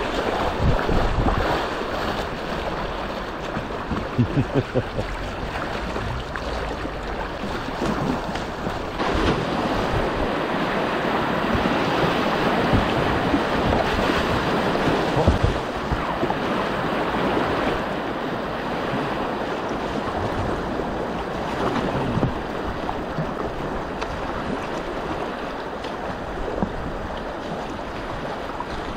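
Rushing whitewater splashing around a kayak running river rapids, with wind noise on the microphone.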